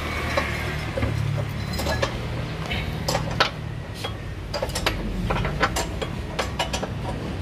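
Socket ratchet wrench on an extension clicking in short runs as a suspension bolt is turned, with the odd metal clink of the tool.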